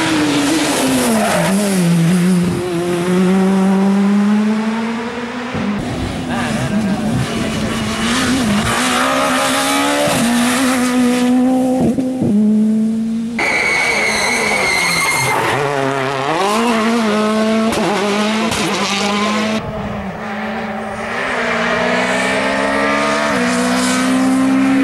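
Rally cars driven flat out on a stage, one pass after another, their engines revving high and dropping back in quick gear changes. A high steady whine sounds for about two seconds in the middle.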